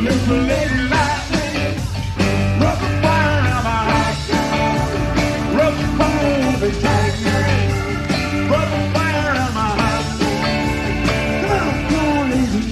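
Rock music: drums and bass under a lead line whose notes bend up and down in pitch.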